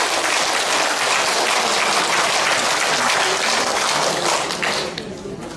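Audience applauding: a dense, steady clatter of many hands clapping that dies away near the end.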